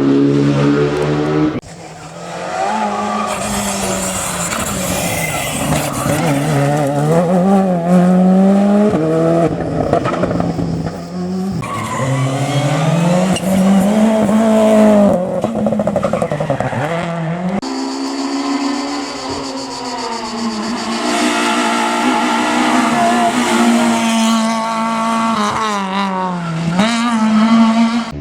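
Rally cars driven flat out: engines revving hard, pitch climbing and dropping with each gear change and corner, with tyre squeal. The sound changes abruptly twice, where one car's clip cuts to the next.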